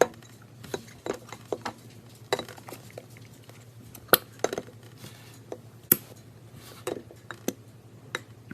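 Slime being squeezed and poked by hand, giving irregular sticky clicks and pops, over a faint steady low hum.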